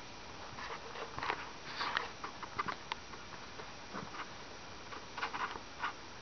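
Scattered short rustles and clicks over a steady hiss, the handling noise of a handheld camcorder being carried along.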